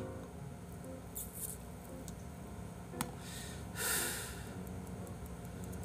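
Quiet room tone at a streaming microphone, with one sharp click about three seconds in and a single soft breath or sniff about four seconds in, among a few faint clicks.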